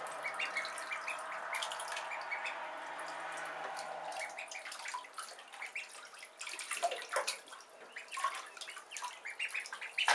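Water splashing and dripping in a bathtub as Khaki Campbell ducklings swim and paddle, with many short, sharp splashes. A steady rush of water runs underneath for the first four seconds, then stops.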